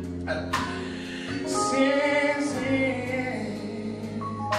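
Live gospel band with a male lead singer: he sings a drawn-out line over electric bass, drums and sustained keyboard chords.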